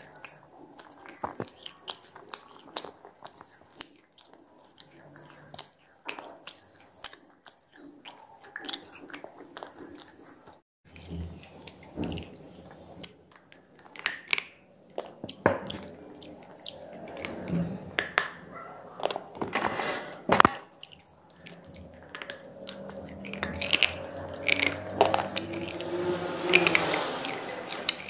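Square pieces of slate being bitten and chewed: a run of sharp, irregular crunches and cracks as the stone breaks between the teeth.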